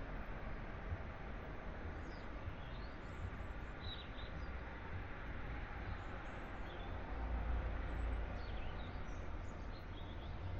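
Distant city traffic hum, a steady low rumble that swells a little about two-thirds of the way through, with scattered short bird chirps.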